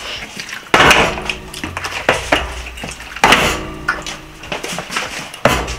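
A half-full plastic bottle flipped and landing with a loud knock on a glass tabletop, twice, about two and a half seconds apart, with smaller clinks of a fork on a plate in between.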